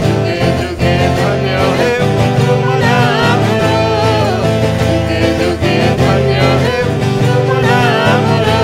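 A man singing a worship song in Odia, accompanied by a twelve-string acoustic guitar.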